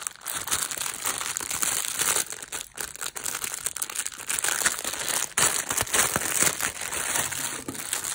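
Clear cellophane packaging crinkling and rustling as hands handle it and peel it open, with a short lull twice.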